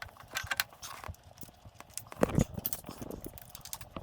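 Irregular small clicks and clatter of engine parts and tools being handled, with one heavier knock a little past halfway.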